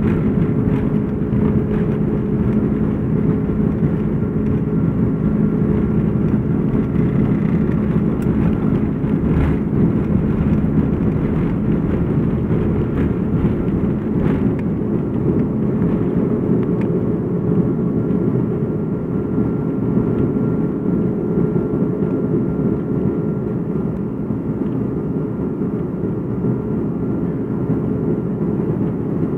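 Airbus A330-300 jet engines at takeoff thrust, heard from inside the cabin as a loud, steady roar with a low hum. The rumble and jolts of the wheels on the runway ease off about halfway through as the airliner lifts off and climbs.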